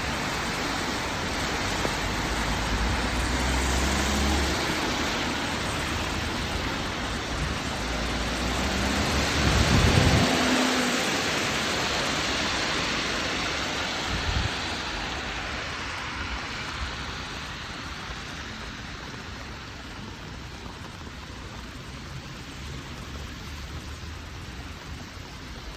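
Steady rain with a vehicle passing on the wet road, loudest about ten seconds in, and a short knock a few seconds later. The rain noise eases off in the second half.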